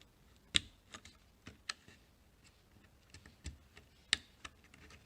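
Irregular light clicks and taps of hands working on a TV's power board, fitting its connectors and handling the plastic and metal parts, with two sharper clicks, one about half a second in and one about four seconds in.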